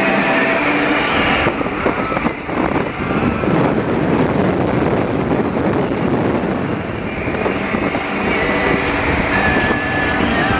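Car driving at highway speed, heard from inside: a steady rumble of road and wind noise. Radio music plays faintly underneath at the start and comes back near the end.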